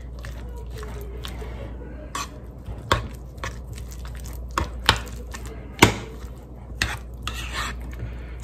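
A fork stirring shredded cheddar cheese into a thick sour cream and mayonnaise mixture in a bowl, with irregular sharp clinks of the fork against the bowl about a second apart, the loudest near three and six seconds in.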